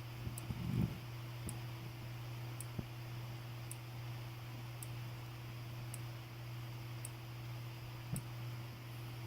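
Faraday 5512 fire-alarm strobe ticking faintly with each flash, about one tick a second, over a steady low hum. A brief knock comes just under a second in.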